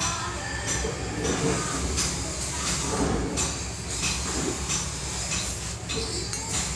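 Steady low hum and hiss of background noise, with faint voices in the distance now and then.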